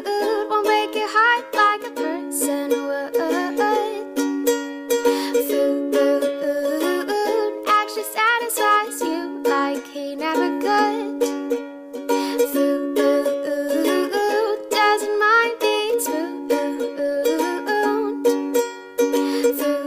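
Background music: a song with a steady beat and a plucked-string accompaniment.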